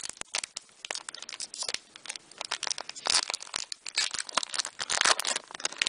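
Foil wrapper of a Pokémon trading card booster pack being torn open and handled, crinkling with many sharp crackles, loudest about three seconds in and again around five seconds in.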